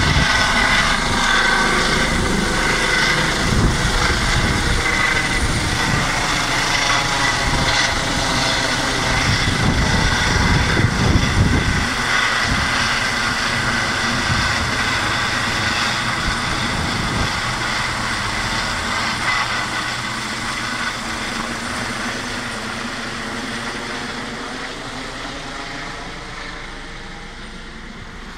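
Eurocopter EC135 helicopter climbing away after takeoff: twin turbines and rotors running with a steady high whine over a low rumble. The rumble is heavy for about the first twelve seconds, then falls away, and the whole sound fades steadily as the helicopter gains height and distance.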